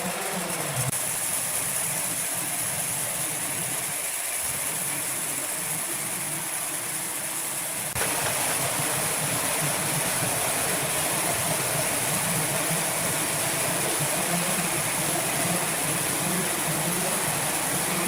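Woodworking plant machinery running steadily, a dense mechanical noise with a strong high hiss. It jumps abruptly louder about halfway through.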